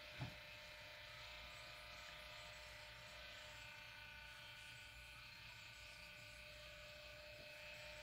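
Faint, steady hum of a small electric cup-turner motor slowly rotating an epoxy-coated tumbler.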